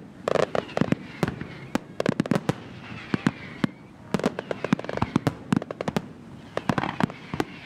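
Aerial firework shells bursting in a fast, irregular series of sharp bangs, with dense clusters of reports about half a second in, around the middle and near the end.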